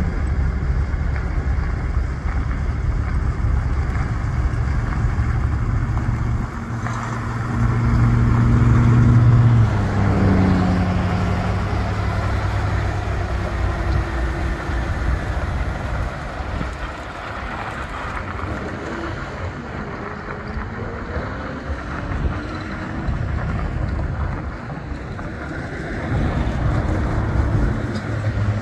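Diesel engine of a 2016 Peterbilt 579 day-cab tractor driving on dirt. It runs steadily, grows louder and higher about six to nine seconds in, drops in pitch and level near ten seconds, runs quieter with a wandering pitch through the middle, and picks up again near the end.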